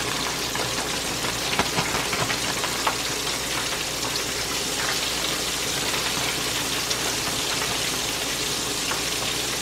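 Flour-dredged chicken pieces shallow-frying in hot oil in a skillet on medium heat: a steady, even sizzle with scattered small crackles.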